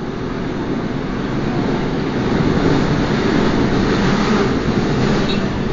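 Seoul Subway Line 5 train running, heard from inside the car: a loud, steady rumble of wheels on rail and traction motors that swells a little partway through.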